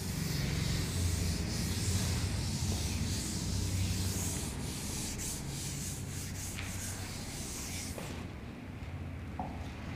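A hand rubbing and wiping across the glass of an interactive smart board to erase writing, in repeated strokes that stop about eight seconds in, over a low steady hum.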